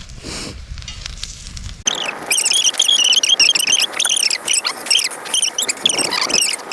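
A low rumble, then, after an abrupt change about two seconds in, a dense outdoor chorus of many small animals calling at once: high, rapid chirps and peeps overlapping throughout.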